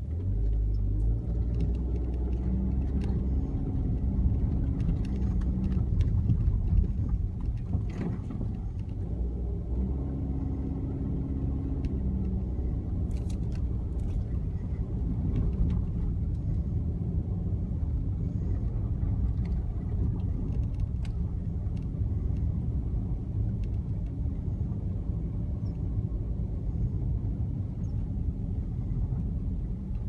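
Steady low rumble of a car's engine and tyres while driving, heard from inside the car, with a few faint clicks now and then.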